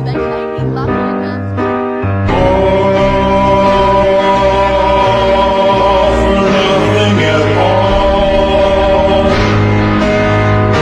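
Music with singing: short repeated chords over a bass line, then about two seconds in the music turns louder into long held sung notes.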